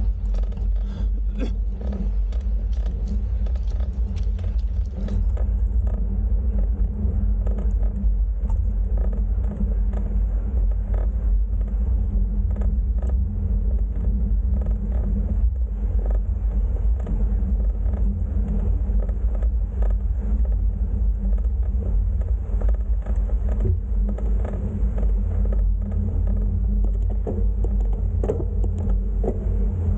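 Steady low rumble of wind buffeting a bicycle-mounted camera's microphone while riding, with scattered light ticks.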